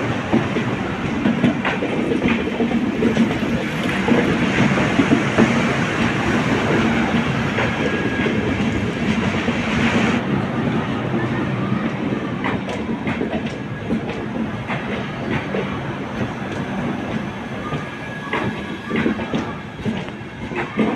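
Indian Railways LHB passenger coaches rolling past close by, with a steady rumble of wheels on rail and clickety-clack over the rail joints. About halfway through the sound changes abruptly to a quieter rolling with separate, distinct wheel clicks.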